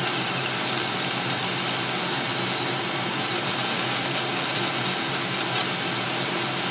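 A 50 W Raycus fiber laser engraving slate, a steady loud hiss with a low hum underneath.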